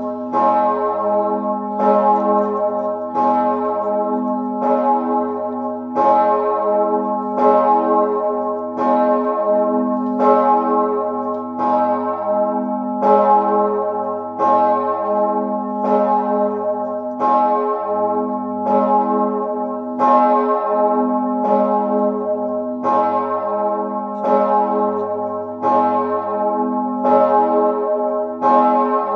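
The single large swinging church bell Mauritius, cast by Perner of Passau in 2003, about 4.8 tonnes and tuned to A-flat, tolling alone for the Sterbestundenläuten, the death-hour tolling. It strikes evenly about once every second and a half, each stroke ringing on over a deep hum into the next.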